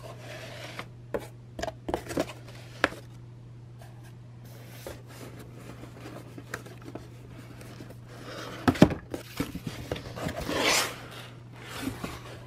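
Cardboard product boxes being handled and pulled out of a cardboard shipping carton: scattered knocks and taps, a cluster of louder knocks about nine seconds in, then cardboard scraping against cardboard. A steady low hum runs underneath.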